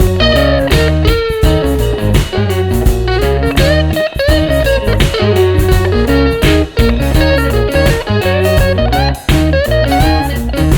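Background music with a guitar lead and a steady beat.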